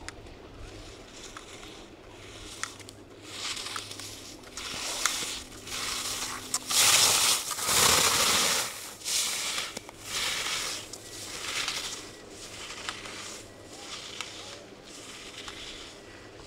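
Skis carving turns on hard snow: a run of scraping swooshes, about one per turn, growing louder to a peak about seven to nine seconds in, then fading as the skier moves away.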